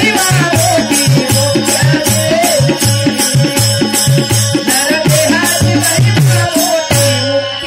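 Bhajan music: jingling hand percussion strikes a quick, steady beat over a drum and a wavering melody line. Near the end the jingles stop briefly.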